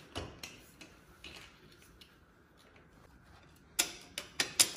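Steel jack handle clicking and knocking in the socket of a bottle jack as it is fitted: a few light clicks in the first second or so, then a quick run of sharper metal clicks near the end.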